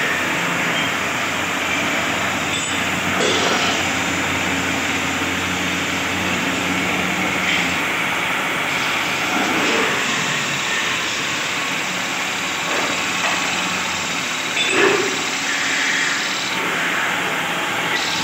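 Electric-motor-driven wood lathe running while a long hand-held chisel cuts a large spinning wooden vessel: a steady hiss of the cut over the motor's low hum, with a few brief louder scrapes as the tool bites.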